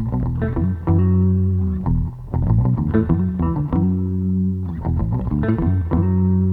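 Background music led by guitar over a steady bass line, in repeating phrases.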